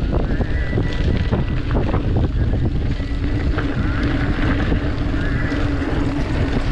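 Wind buffeting the microphone over the rumble and rattle of a mountain bike rolling fast down a dirt and gravel trail, with many small knocks from the bumps.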